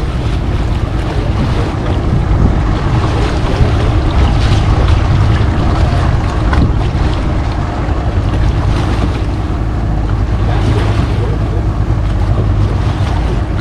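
Small motor tour boat under way: its engine running steadily, with water rushing past the hull and wind buffeting the microphone.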